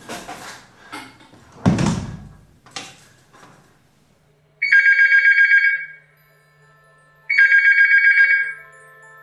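A few knocks and thumps, the loudest about two seconds in, then a telephone ringing twice about halfway through, each ring a rapid bell-like trill lasting about a second.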